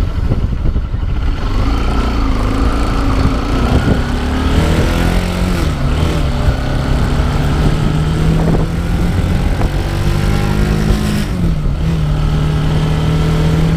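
Motorbike engine running while riding. Its pitch rises as it picks up speed, then holds steady, dipping briefly and coming back about eleven seconds in.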